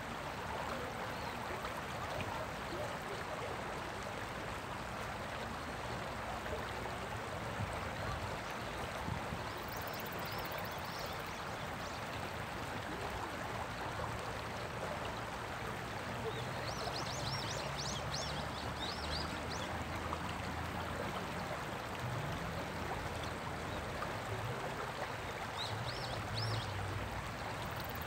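Water of a shallow river riffle running over rocks: a steady rushing, babbling flow. A few brief high chirps come about a third of the way in, again past halfway, and near the end.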